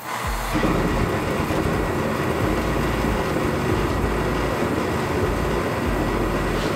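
Lawn-Boy Porta Heater kerosene torpedo heater starting up. Its fan and burner come on about half a second in and run with a steady, even rush. The heater has lit and is running normally, no longer shutting itself off.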